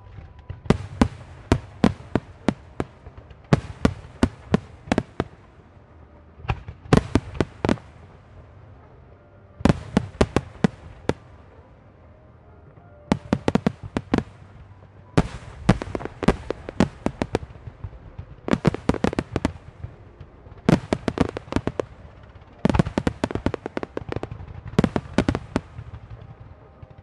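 Starmine fireworks volleys: rapid runs of sharp aerial shell reports come in about ten clusters, each lasting one to two seconds, with short gaps between them.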